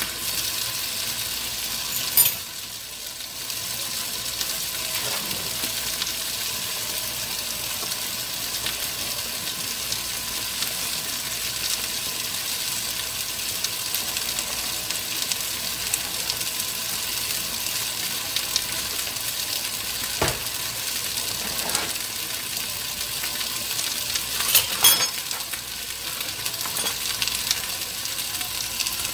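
A pan of okra stew boiling hard on a gas stove, a steady sizzling and bubbling hiss. Sharp clinks sound about two seconds in and twice near the end.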